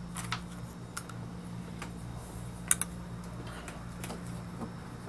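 Scattered light clicks and taps of tobacco pipes being picked up and handled, with one sharper double click about two and a half seconds in, over a steady low hum.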